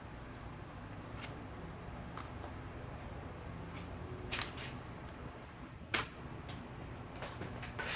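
Light clicks and taps of small hand tools and a phone being handled on a work surface, a few scattered over a low steady hum, the sharpest about six seconds in.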